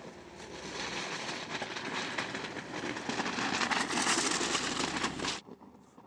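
Tyres of a 2019 Mercedes-Benz G-Class crunching and grinding over loose rocks at crawling speed, with a dense crackle of stones shifting under the wheel. It grows louder as the wheel passes close and cuts off suddenly about five seconds in.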